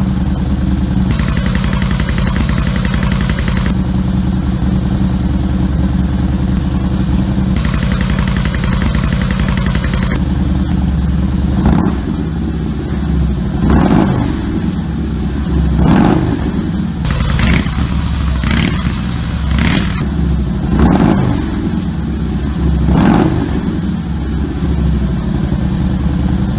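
Harley-Davidson V-twin running through a newly fitted Freedom exhaust with its baffles in: it idles steadily, then from about twelve seconds in it is blipped about eight times, each rev climbing and dropping back to idle.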